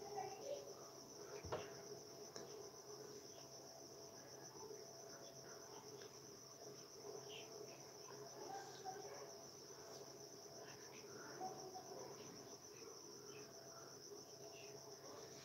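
Faint, steady insect chorus: a continuous high-pitched pulsing trill, with scattered faint short chirps and a single sharp click about a second and a half in.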